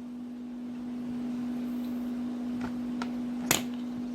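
A few light clicks of kitchen utensils, the sharpest about three and a half seconds in, over a steady low hum.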